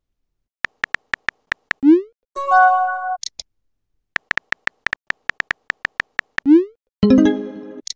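Chat-app sound effects: a run of short keyboard-tap clicks as a message is typed, a quick rising swoosh as it is sent, then a short chime. The same pattern repeats, with the second chime near the end.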